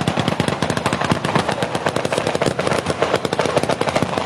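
Fireworks going off in a rapid, unbroken string of sharp cracks and bangs, many per second, like machine-gun fire, as rising white tails and a ground-level burst fire together.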